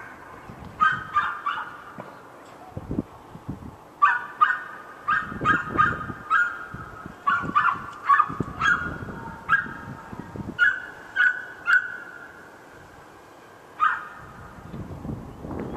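A dog barking over and over in short, high yaps, about nineteen of them in quick runs, then a pause of two seconds before one last bark.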